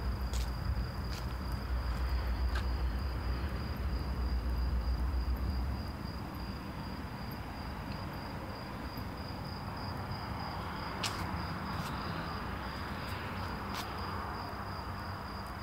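Crickets trilling, a steady high-pitched tone, over a low background rumble that drops away about six seconds in, with a few faint clicks.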